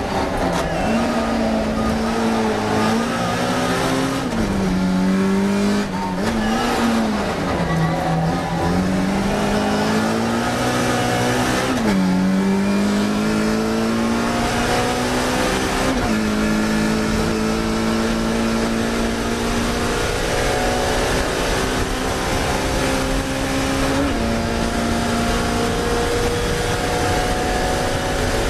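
Classic Mini race car's four-cylinder engine heard from on board at racing speed. It revs up and down through corners, and the pitch steps several times as gears are changed.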